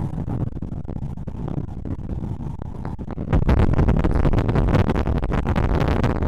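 Strong gusting wind buffeting the microphone: a heavy, irregular low rumble that gets suddenly louder about three seconds in, with rough waves breaking on the lake shore beneath it.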